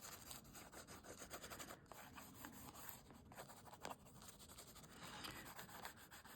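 Faint scratchy rubbing of a Neocolor II water-soluble wax pastel crayon being worked across paper in short, irregular strokes.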